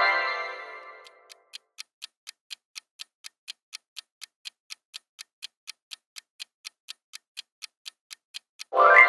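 Quiz countdown-timer sound effect: a clock ticking evenly, about four to five ticks a second. A rising chime marks the answer reveal at the start and fades over about a second, and a second one comes in near the end.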